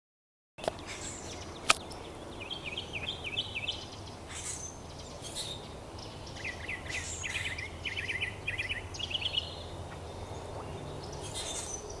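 A songbird singing two runs of quick repeated chirps, the second longer, over a steady low hum, with one sharp click a second or two in.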